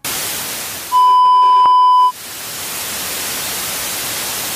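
Television static hiss, with a steady test-tone beep lasting about a second from about a second in.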